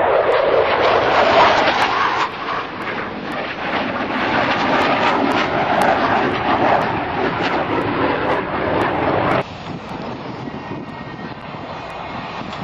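Jet noise from Blue Angels F/A-18 Hornets, a loud rushing roar from a low, close pass. About nine seconds in it drops sharply to a fainter, more distant jet roar.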